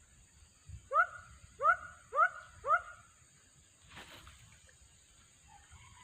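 An animal calling four times in quick succession, short yelps that each rise sharply in pitch. A single sharp knock follows about four seconds in.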